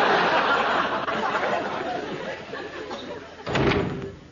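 Studio audience laughing at a punchline, the laughter fading away over about three seconds. Near the end comes a short, louder burst of noise with a low rumble.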